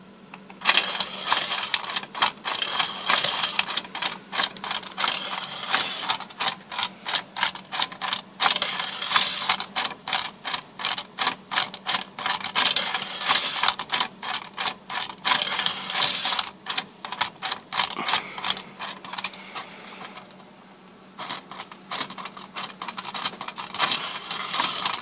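Plastic clicking and clattering of a battery-free Thomas & Friends roller-coaster toy as its red lever is pressed over and over, working the stair-step lift that carries the little trains up to the track. A quick run of clicks, about three a second, breaks off for about a second near the end and then starts again.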